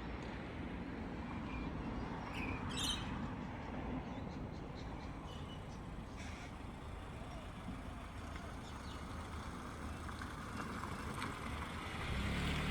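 Outdoor ambience: a steady low rumble of distant traffic with a few faint high chirps about two to three seconds in. A vehicle engine hum swells near the end.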